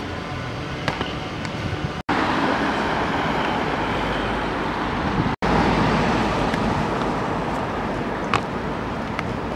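City street traffic noise: a steady hum of passing cars, with a few sharp taps. The sound cuts out for an instant twice.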